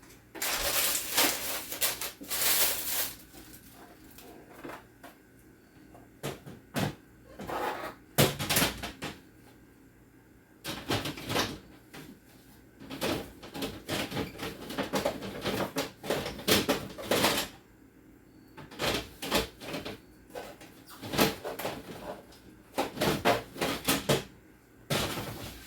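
Plastic refrigerator drawers and food containers being handled and set in place: irregular clacks, knocks and rustles in short clusters with brief pauses between.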